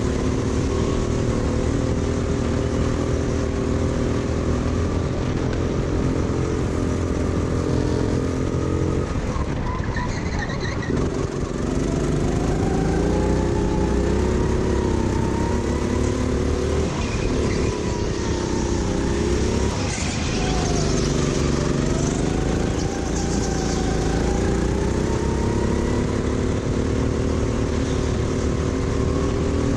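Racing go-kart engine running hard around a track. Its pitch drops as it slows for corners, about a third and two-thirds of the way in, and climbs again as it accelerates away.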